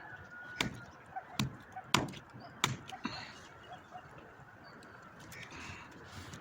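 Knife chopping through rooster meat and bone: four sharp chops in the first three seconds, then quieter.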